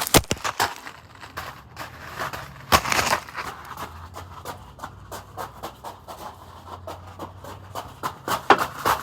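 Panting breaths with rapid rustling and handling noise, busiest at the start and near the end, and one sharp knock about three seconds in.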